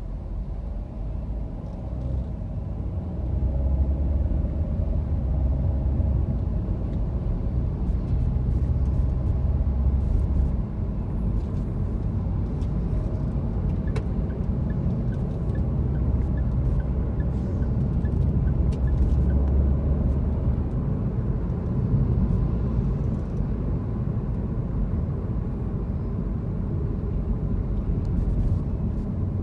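Car driving on a city street: a steady low rumble of engine and road noise, growing louder about three seconds in as the car gets under way and then holding steady.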